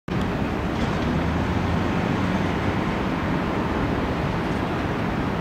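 Steady city traffic noise with a low engine rumble.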